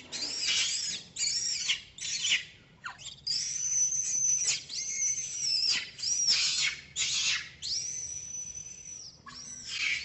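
Baby long-tailed macaque crying: a string of shrill, high squeals that rise and fall in pitch. Some are drawn out for about a second, with short breaks between them. It is an infant's distress cry while it clings to its mother.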